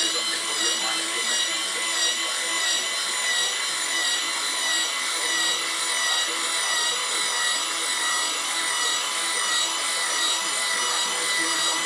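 Small electric motor turning the RC tipper truck's threaded-spindle tipping ram, a steady whine as the tipper body is raised.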